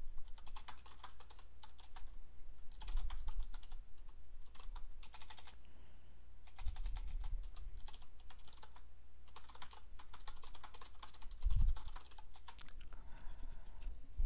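Typing on a computer keyboard in short bursts of rapid keystrokes, with a few soft low thumps in between, the strongest about three quarters of the way through.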